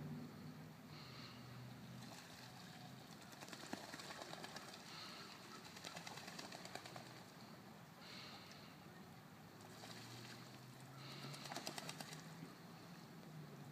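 Ducks calling faintly, in short pulsing calls every few seconds, over a faint low hum.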